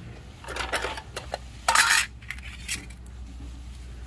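A steel circular saw blade clattering as it is taken off a miter saw's arbor and set down on concrete. A short rattle comes about half a second in, then a few clicks, and the loudest metallic clatter just before two seconds.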